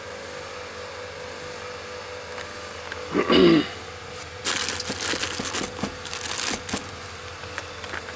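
Plastic parts organiser case being handled, its lid and the boxed contactors inside clicking and rattling for a couple of seconds, over a steady mechanical hum. A brief loud pitched sound comes about three seconds in, just before the rattling.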